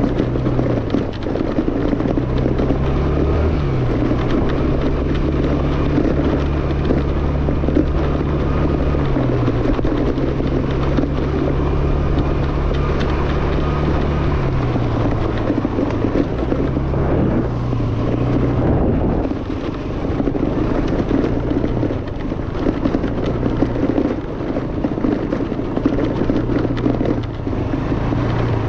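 Yamaha Fascino scooter's engine running while being ridden, its note rising and falling several times with the throttle, under steady wind and road noise.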